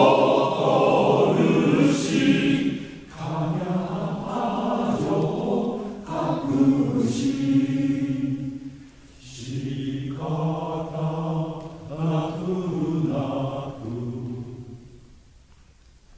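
Men's choir singing a Japanese part-song in phrases with short breaks between them. The final chord fades away near the end.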